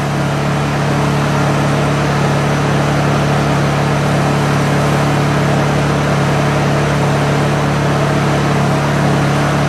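Honda EU2000i inverter generator's single-cylinder four-stroke engine running at a steady speed, an even hum with no change in pitch or level.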